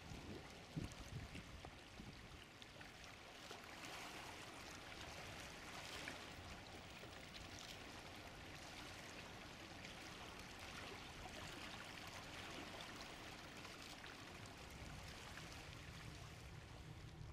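Faint, steady wash of water, like small waves lapping along a shoreline, with a few low thumps about a second in.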